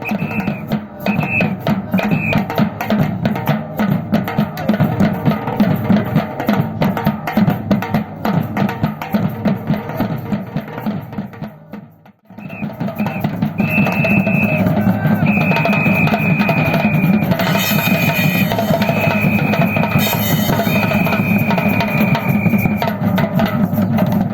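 Batucada ensemble of Brazilian percussion drums playing a dense, loud groove. It breaks off abruptly a little past halfway, then starts again. High steady tones sound over the drums in short blasts near the start and in longer held notes in the second half.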